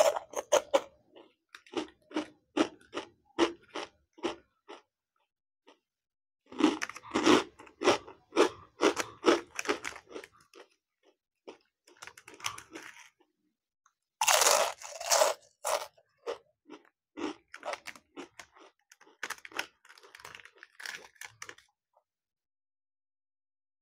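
Close-miked biting and chewing of a crunchy rolled stick snack. The crunches come in runs of short strokes with pauses between them, and the loudest bite comes about two-thirds of the way through. The crunching stops shortly before the end.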